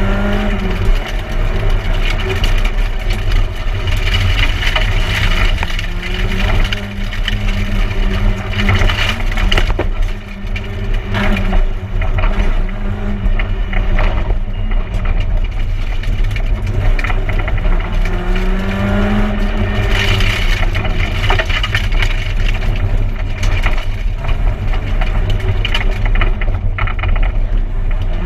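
Peugeot 106 1.6-litre rally car's four-cylinder engine heard from inside the cabin at stage pace, its pitch climbing and dropping with gear changes and braking, over loud road noise. A few sharp knocks come through along the way.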